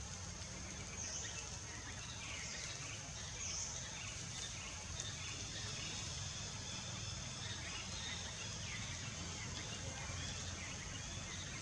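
Outdoor background with a steady high-pitched insect drone and short chirping calls repeating every second or so over a low rumble.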